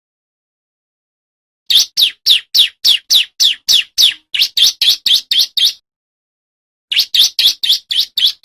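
Male bar-winged prinia (ciblek) calling in two fast runs of sharp, falling chip notes, about four a second. The first run starts nearly two seconds in and lasts about four seconds; the second comes near the end.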